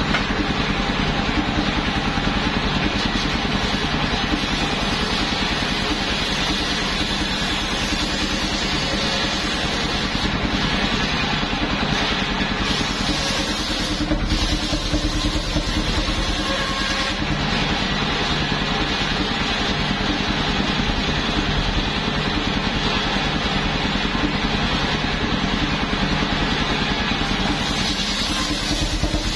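Steadily running engine driving a large truck-mounted circular saw blade as it rips planks.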